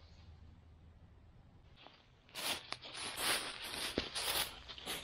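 Crinkly packaging being torn and rustled open, a run of loud crackling rustles starting about two seconds in, with a couple of sharp clicks among them.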